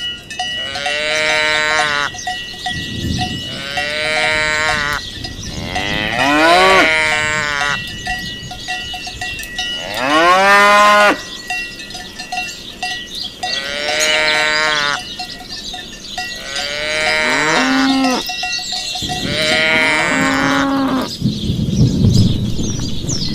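Cattle mooing, seven calls of a second or so each, over the faint steady ringing of cowbells.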